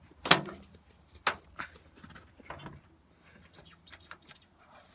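Several sharp knocks and clunks, the loudest two in the first second and a half, then a few fainter clicks: someone climbing up into a truck cab.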